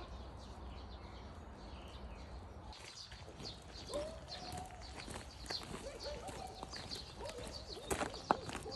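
A small animal's short, high calls, several in a row from about four seconds in, over many quick light clicks.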